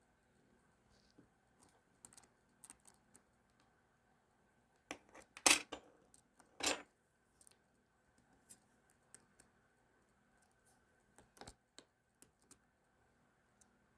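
Small metal parts and tools handled on a tabletop: scattered light clicks and taps from working on a ratcheting screwdriver's mechanism, with two louder knocks about halfway through.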